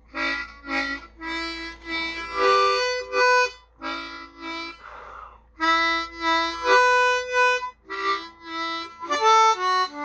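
Diatonic harmonica played tongue-blocked with tongue switching, a melody of short notes in quick phrases. A brief breathy hiss comes about five seconds in.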